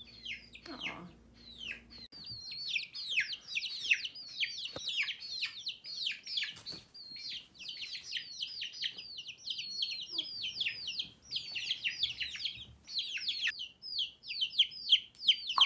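Several chicks peeping continuously, a dense run of short high-pitched calls that each slide downward, many overlapping every second.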